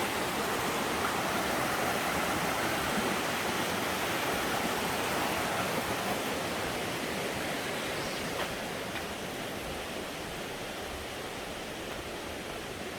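Rushing creek water, a steady rush that slowly grows fainter over the second half.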